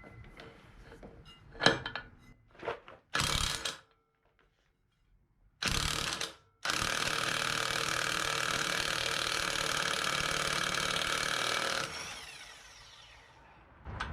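Impact wrench undoing a tight nut on an ATV's variator: two short bursts of hammering, then a steady run of about five seconds that stops abruptly.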